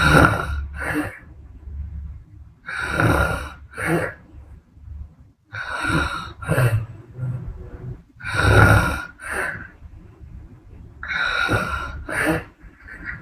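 A sleeping woman snoring: about every three seconds a breathy snore lasting under a second, with a low rumble in some of them, followed about a second later by a shorter, sharper breath. Five of these breathing cycles.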